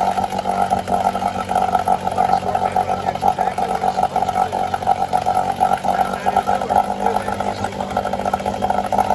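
Yamaha 3 hp two-stroke outboard running steadily with its lower unit in a bucket of water, just after its water-pump impeller was replaced.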